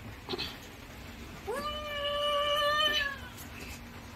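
One long drawn-out cry, rising at the start, held level for over a second, then falling away.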